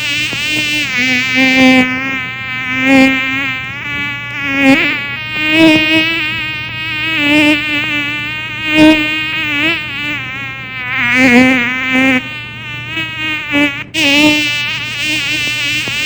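Mosquito buzzing in flight: a high, whining hum whose pitch wavers up and down and whose loudness swells and fades every second or so as it passes close by. It dips briefly about fourteen seconds in and starts straight up again.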